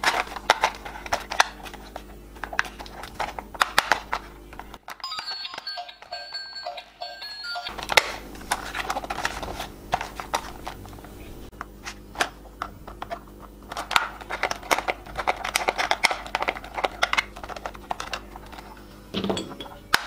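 Hard plastic toy car parts clicking and knocking as the body and chassis are handled and snapped together, a quick irregular run of clicks. Quiet background music plays under it.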